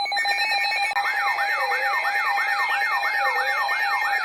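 Electronic alert tones and siren: a pulsing beeping tone gives way about a second in to a fast yelp siren rising and falling about three times a second, laid over a slower wail and steady high tones.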